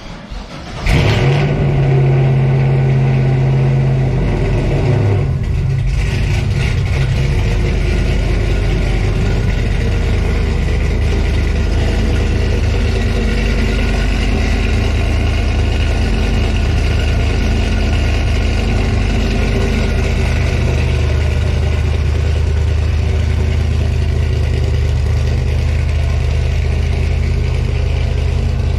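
Cammed 6.0 V8 truck engine starting through a new 3-inch equal-length exhaust with Black Widow Race Venom mufflers. It fires about a second in, runs at a raised idle for a few seconds, then drops to a steady idle.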